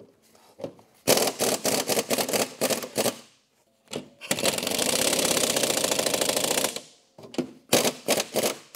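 Pneumatic impact wrench hammering on a snowmobile's rear suspension mounting bolt to break it loose. A few short trigger bursts, then one long unbroken run of rattling impacts lasting about two and a half seconds, then more short bursts near the end.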